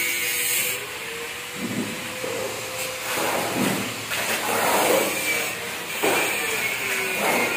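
Steel trowel scraping and spreading wet concrete in repeated swishing strokes, about one a second.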